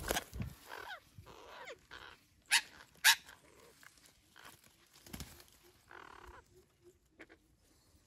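Flock of red-breasted parakeets at a tree-hollow nest giving harsh squawks and short falling calls. The two loudest, sharp ones come about two and a half and three seconds in, with weaker calls fading out after about six seconds.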